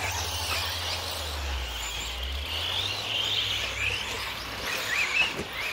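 Birds chirping over a low steady hum that dies away about four seconds in, with a few sharper chirps near the end.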